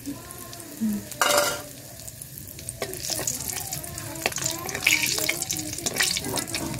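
Whole garam masala spices sizzling in hot oil in a large metal kadai, with a brief louder burst about a second in. From a little under three seconds in, a flat spatula stirs them, scraping and knocking against the pan in quick irregular strokes.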